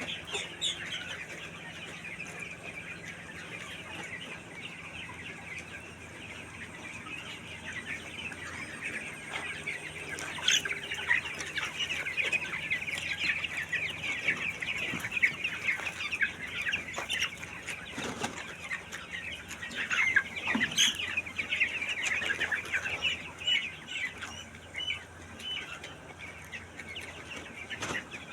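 A flock of chickens in a poultry shed calling together: a dense, continuous chatter of short chirps and clucks that gets busier through the middle, with a few sharp knocks standing out.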